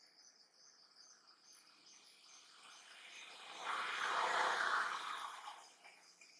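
Steady chirring of insects, with a louder rushing noise that swells up over about three seconds in the middle and fades away.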